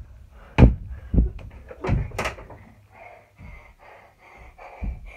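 Sharp knocks and thuds from a mini basketball dunk on a small hoop: the ball and hands strike the backboard and rim. There are about four in the first couple of seconds and one more near the end.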